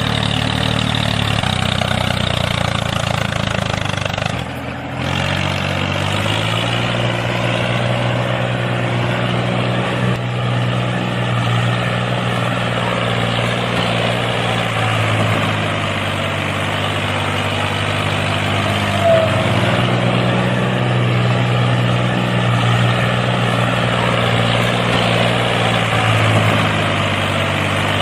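A motor vehicle engine, tractor-like, running steadily with a low, even pitch, with a brief dip about four and a half seconds in.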